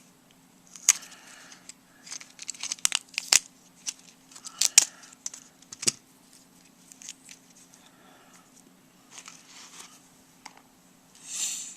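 Small plastic and metal parts of a flip phone being handled during a teardown: irregular sharp clicks and crinkly scrapes, busiest in the first half, with a longer rustle near the end. A faint steady hum lies underneath.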